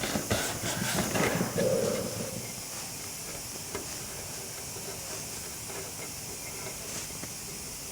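Airbrush spraying paint, a steady hiss of air, with a few light knocks in the first couple of seconds.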